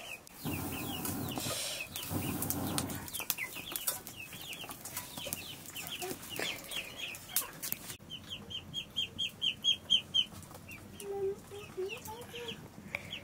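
Chicks peeping in runs of short, high, falling chirps, one fast run of about eight a second near the middle, with a lower wavering call near the end. In the first three seconds, water rushes as it is poured into an aluminium pot.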